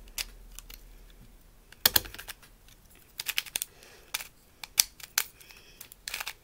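Plastic clicking and clacking of a Rubik's Color Block, a mirror cube with coloured stickers, turned by hand. The turns come in short bursts of quick clicks with pauses between, with one louder clack about two seconds in.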